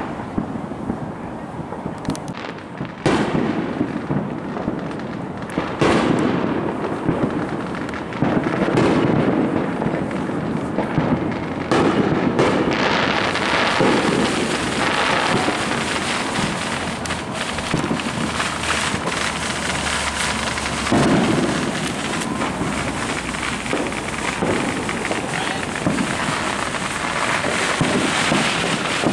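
Fireworks going off: loud bangs a few seconds apart, and from about halfway through a dense, steady crackling.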